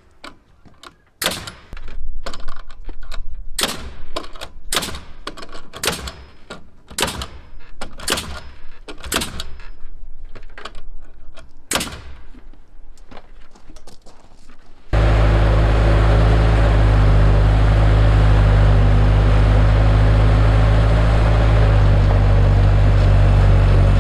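About a dozen sharp nailing strikes, roughly one a second, as nails are driven into plywood sheathing on the wooden framing. About fifteen seconds in, a loud, steady motor drone with a low hum cuts in abruptly and carries on.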